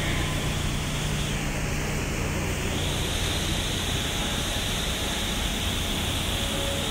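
New York City subway E train passing close by the platform: a steady rushing noise of steel wheels on rails with a low rumble beneath, holding level throughout.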